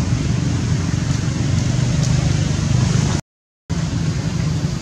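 Steady low rumbling background noise that drops out to complete silence for about half a second a little over three seconds in.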